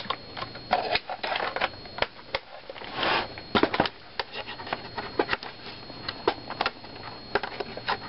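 Hands handling a Panasonic Toughbook CF-47 laptop and fitting a power supply plug into its rear: scattered clicks, knocks and taps on the case, with a short scraping rustle about three seconds in. A faint steady high-pitched whine runs underneath.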